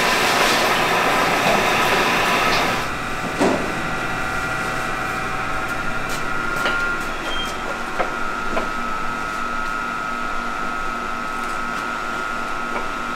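Pottery factory workroom sound: a steady machine hum, louder and noisier for the first three seconds before it drops off abruptly, with a few scattered light knocks and clicks of clay ware and wooden boards being handled.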